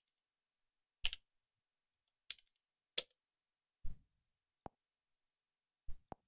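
Faint computer keyboard keystrokes and mouse clicks while a date is typed in and confirmed: about seven separate clicks, unevenly spaced, two of them close together near the end.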